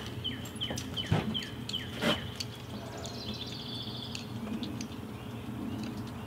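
A songbird singing a run of quick, high, descending whistled notes, about three a second, then a short buzzy trill. Two sharp knocks come about one and two seconds in, over a low steady hum.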